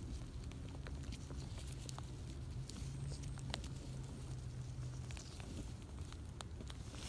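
Grass rustling and crackling with scattered small clicks as a hand picks through it, over a low rumble. A low steady hum sounds from about a second in to about five seconds in.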